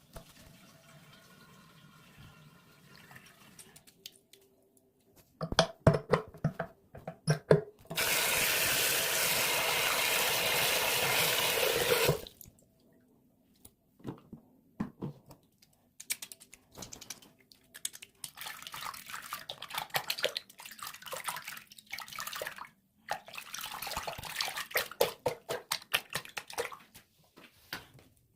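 A few knocks, then a water tap running steadily for about four seconds. After that comes irregular wet squishing and crackling of liquid soap being worked, which goes on to the end.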